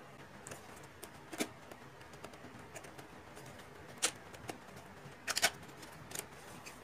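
Scattered small clicks and taps of hands opening a microphone's retail box and packaging, with a quick cluster of clicks about five seconds in.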